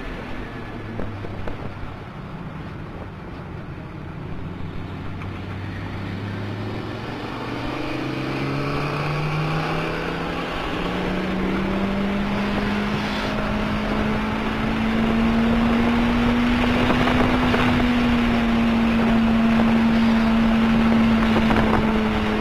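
Toyota MR2 Turbo's turbocharged four-cylinder engine heard from inside the cabin under acceleration out of a slow corner. The engine note sits low for several seconds, climbs steadily and grows louder, then holds high and nearly level at speed over road and wind noise.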